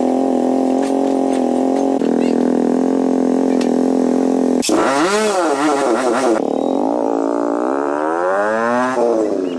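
Repaired motorcycle engine running: a steady idle for the first half, then revved with the pitch swinging up and down, then a long climb in pitch near the end.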